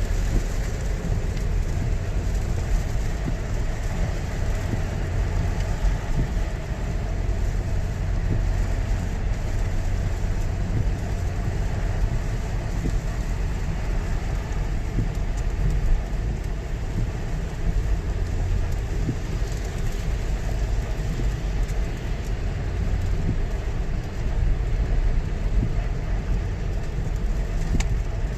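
Steady low rumble of road and engine noise heard from inside a car driving in the rain, with a fainter hiss above it.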